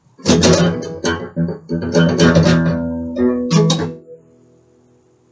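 Guitar strummed in a quick run of chords, the strokes stopping about four seconds in and the last chord ringing out and fading.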